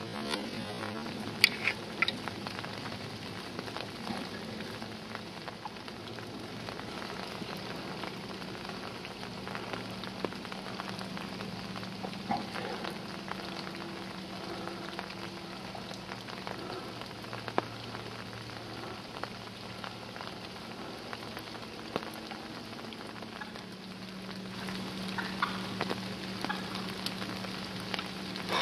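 Steady light rain hissing on the leaves and branches, with scattered sharp drip ticks. A faint steady low hum runs underneath.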